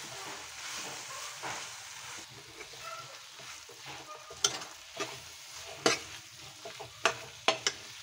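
Metal ladle stirring mashed boiled potatoes through masala frying in a metal kadhai, over a steady sizzle. Sharp clinks of the ladle against the pan come more often in the second half.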